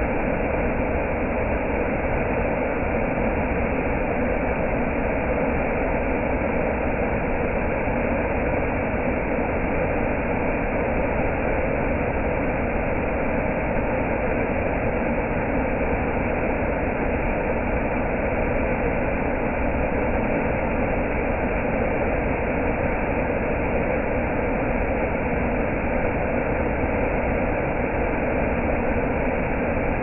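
Waterfall pouring over rocks into a pool: a steady, unbroken rush of falling water.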